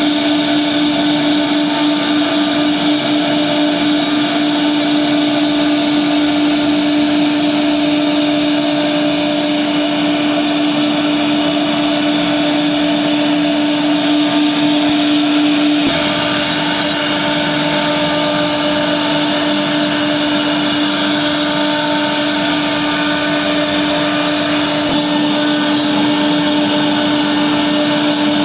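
CNC router spindle running steadily while 3D-carving wood, a loud constant whine with one held pitch and the hiss of the cutter, with a faint click about halfway through.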